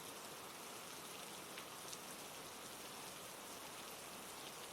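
Steady rain falling, a faint even hiss with a couple of single drop ticks about halfway through.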